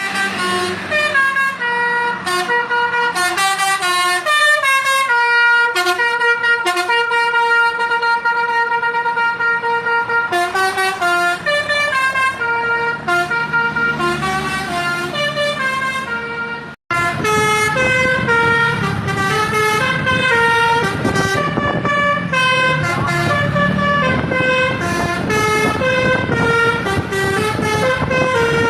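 Basuri "telolet" bus horn playing a melody of quick stepped notes, several tones sounding at once. About two-thirds of the way through it cuts out for an instant, then carries on over a low rumble.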